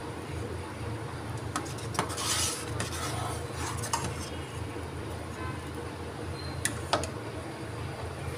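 Metal ladle stirring thick curdled colostrum milk in a metal saucepan, scraping the pot and knocking against its side in a few sharp clinks, the loudest about 7 seconds in. A steady low hum sits underneath.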